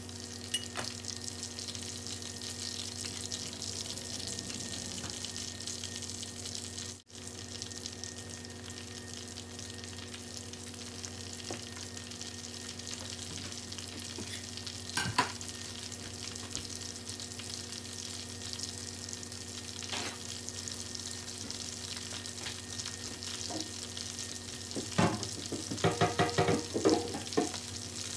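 Pork belly deep-frying in a stainless steel skillet of bubbling oil, with a steady sizzle. Near the end comes a run of louder sharp pops and crackles.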